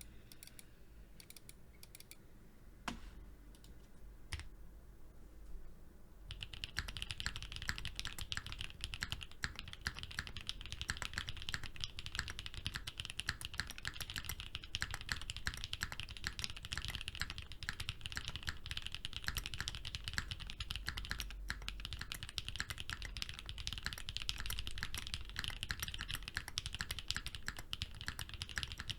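Grey Odin V1 gasket-mounted custom keyboard with lubed Whipped Cream switches, a polycarbonate plate, GMK keycaps and full foam dampening: a few scattered keystrokes, then fast, continuous typing from about six seconds in.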